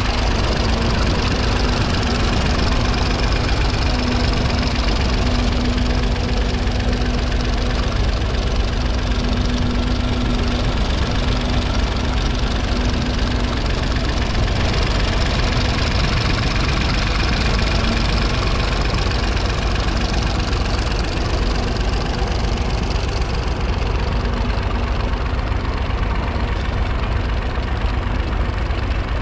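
1959 Nuffield Universal 3's 2.6-litre three-cylinder diesel engine running steadily under load as the tractor pulls a two-furrow trailed plough through the soil, with a constant low rumble and hum.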